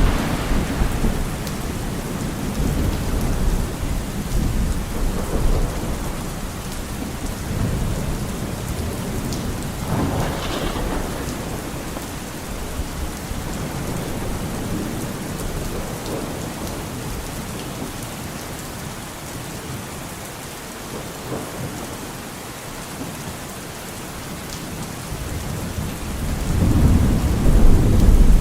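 Steady heavy rain with rolling thunder: a loud rumble fading away at the start, a smaller swell about ten seconds in, and thunder building again near the end.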